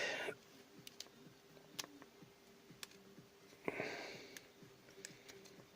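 Faint scattered clicks and one short scrape of small parts being handled, as the carbon brushes are worked out of a cordless drill motor's end cap, over a faint steady hum.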